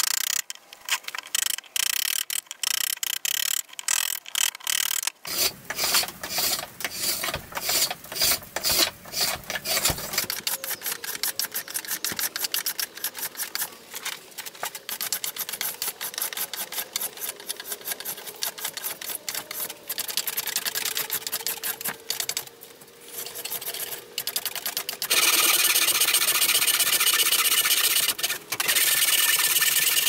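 Hand woodworking: quick, repeated strokes of an edged tool shaving and scraping wood, coming in several separate stretches. It turns louder and more continuous for the last few seconds.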